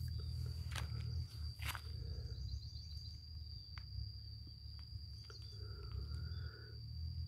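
Outdoor field ambience: a low wind rumble on the microphone, a steady high-pitched insect drone, and a few soft clicks.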